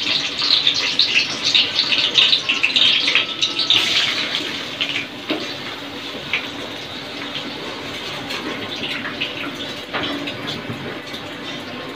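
Soaked, washed rice sizzling and crackling in hot oil in a wok as it goes in a little at a time. The sizzle is strongest for the first four seconds or so, then dies down to a softer hiss.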